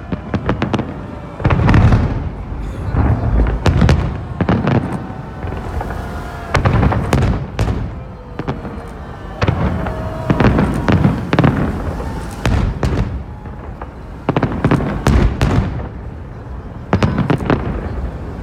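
Holiday fireworks salute: shells bursting in repeated clusters of booms and sharp cracks, a fresh volley every second or two.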